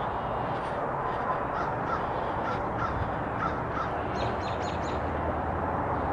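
An American crow cawing repeatedly over a steady background rush, with a quick run of four short calls near the end.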